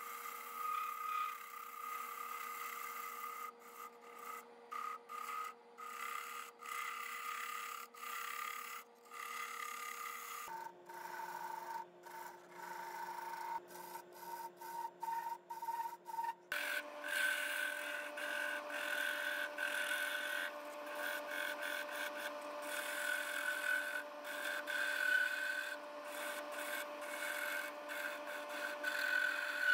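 Wood lathe spinning with a steady motor whine while a turning chisel shaves the wooden goblet's foot and stem, a scraping hiss that breaks off and resumes many times as the tool comes on and off the wood. The pitch of the whine jumps twice, about a third of the way in and just past halfway.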